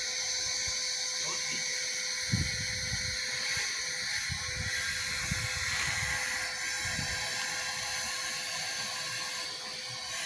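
Steady hissing noise with a faint constant hum, and scattered low muffled bumps, the clearest about two seconds in.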